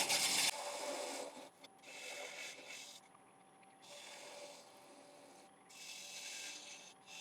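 Turning tool cutting walnut on a wood lathe spinning at 550 RPM, cleaning up the side and bottom of a small bowl's foot: a run of scraping, hissing cuts, each about a second long, with short pauses between, over a thin steady high whine.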